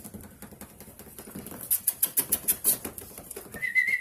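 Rapid light clicking and ticking from puppies' claws scrambling on a hard, glossy floor as they play, thickest about a second and a half in for about a second. A high, steady whistle starts near the end.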